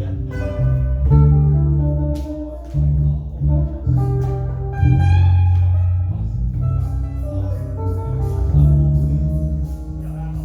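Music: guitar over deep sustained bass notes, chords changing every second or so, with a steady high ticking beat joining about halfway through.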